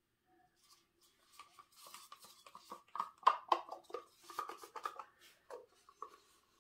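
A stick scraping and clicking against the insides of plastic cups as the last of the acrylic paint is scraped out into a split pour cup. It comes as a quick, irregular run of scrapes and taps, loudest about three seconds in.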